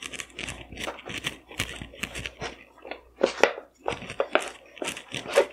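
Wooden rolling pin rolling out a ball of samosa dough on a floured work surface: a run of irregular short rubbing and knocking strokes.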